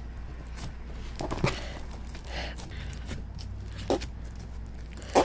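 Slime being handled: faint scattered sticky clicks and soft squishes, over a steady low hum.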